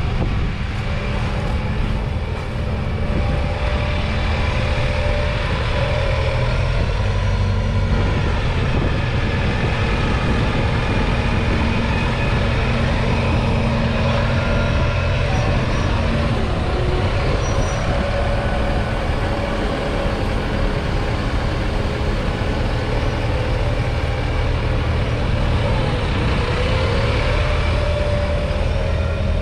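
Kubota M7-173 tractor's 6.1-litre four-cylinder diesel engine running steadily as the tractor passes close by, its pitch rising slightly near the end.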